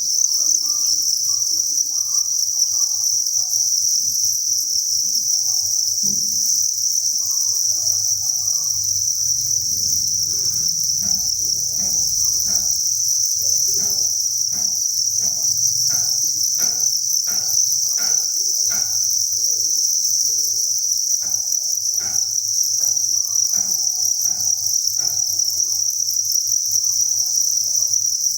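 A dense chorus of many farmed crickets chirping together, blending into one steady, high-pitched trill.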